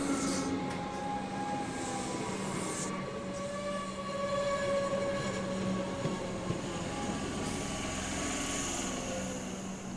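Comeng suburban electric multiple unit running slowly past close by: steady rumble of the wheels on the rails with the motor whine drifting in pitch. A high-pitched squeal builds near the end.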